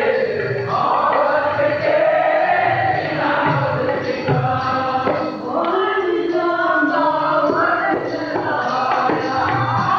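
Sikh kirtan: male voices singing a shabad in a gliding melody, accompanied by harmonium and tabla drums with a steady stroke pattern.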